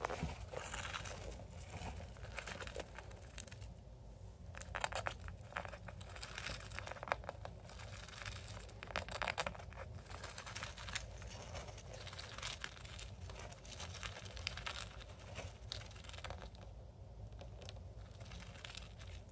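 Small pet rodent burrowing through wood-shaving and paper bedding: irregular bouts of crinkling and rustling, with quieter gaps between them.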